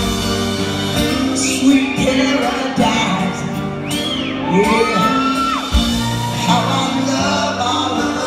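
Live rock band playing an acoustic-guitar-led song, amplified in a large hall, with a male lead vocal singing over it. A couple of high gliding whoops come near the middle.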